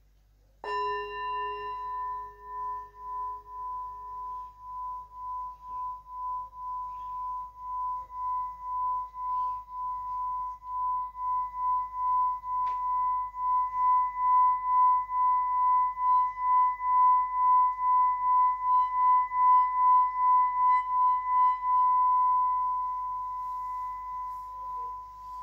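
Hand-held metal singing bowl struck once with a wooden stick about a second in, then sung by rubbing the stick around its rim: one steady ringing tone with a regular pulsing wobble that swells louder, then is left to ring and fade near the end.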